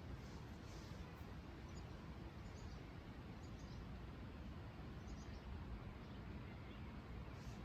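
Quiet outdoor ambience: a steady low background rumble with faint, short high bird chirps heard four or five times.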